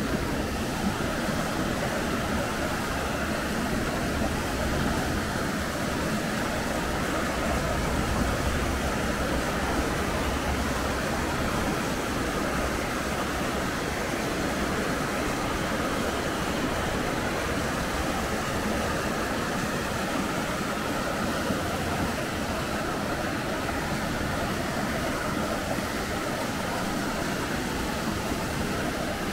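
Steady rush of flowing water from a mountain stream, an even noise with no breaks.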